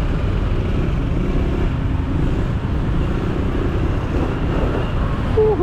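Road traffic in a stopped jam: car and motorcycle engines running at idle under a steady low rumble.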